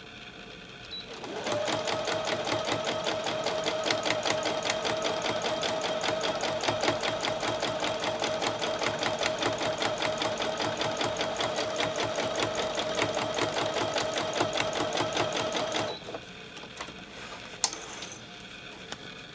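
Husqvarna Viking sewing machine stitching at a steady speed for about fourteen seconds, a motor hum with fast, even needle ticks, then stopping abruptly. A single sharp click follows near the end.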